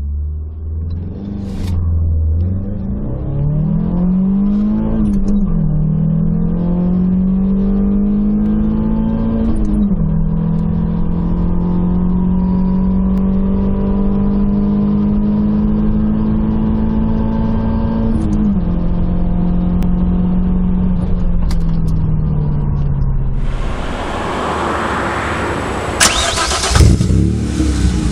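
Opel Calibra petrol engine accelerating hard through the gears. Its pitch climbs in each gear and drops at three upshifts, then eases off as the car slows. Near the end a louder, rougher burst of engine noise follows.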